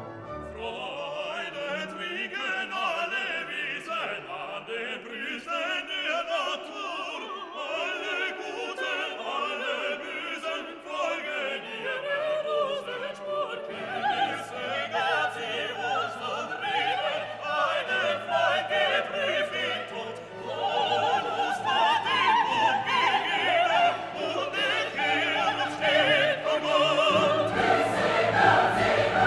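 Classical music with orchestra and operatic singing.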